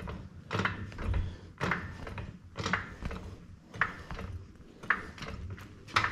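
Hydraulic floor jack being pumped by its long handle to lift a car, with a clunk at each stroke about once a second.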